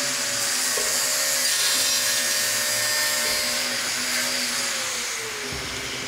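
Radial arm saw running as it cuts a sheet of sign panel, a steady whine over a hiss of cutting, its pitch dropping about five seconds in.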